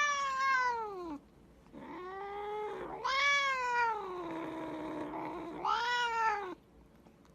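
A cat meowing four times in long, drawn-out meows that rise and then fall in pitch; the third meow is the longest, about two and a half seconds.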